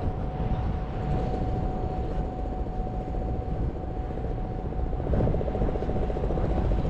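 Steady engine drone with a low rumble and a single held tone, joined by a fast pulsing beat about five seconds in.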